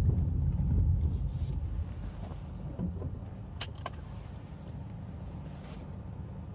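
A car's engine and rumble, easing off over the first couple of seconds and then running lower and steadier, with a few sharp clicks a little past halfway.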